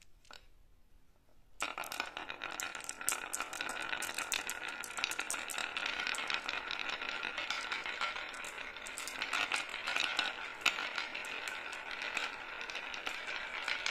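Marbles rolling down a wooden Haba zigzag slope track, a dense clatter of clicks over a steady rolling rumble as they knock against the groove walls and each other. It starts suddenly about a second and a half in.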